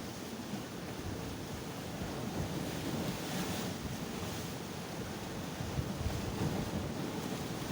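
Sea waves breaking and washing on the shore, a continuous rushing surf with one wave's hiss swelling about halfway through. Wind buffets the microphone underneath.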